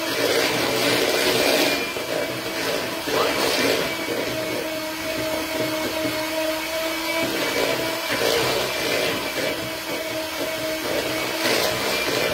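Handheld electric mixer running steadily, its beaters whirring through a batter, with a steady motor hum and a few brief louder swishes as the beaters move around the bowl.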